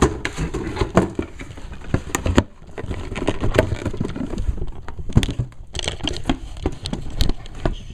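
Clear plastic blister packs of miniature figures crinkling and clacking as they are handled, with many irregular sharp clicks and knocks.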